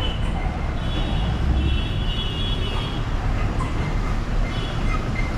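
Engine of a small goods mini-truck running with a steady low rumble as it reverses slowly.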